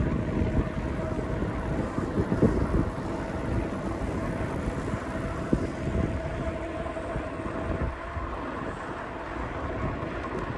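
Wind rushing over the microphone of a moving bicycle, with its tyres rolling on asphalt and a faint steady whine.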